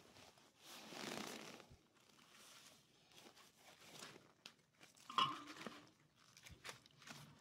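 Grilled duck being torn apart by hand and cut with a knife: crackly tearing of the crisp skin and meat, with irregular clicks and scrapes, loudest about five seconds in.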